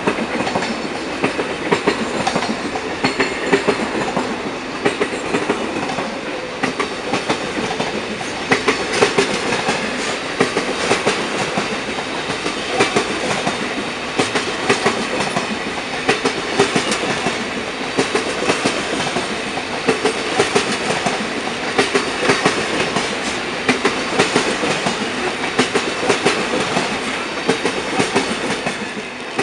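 Freight train of enclosed car-carrier wagons rolling past close by: a steady rumble and rattle of steel wheels on the rails, with frequent sharp clicks and knocks from the wheels.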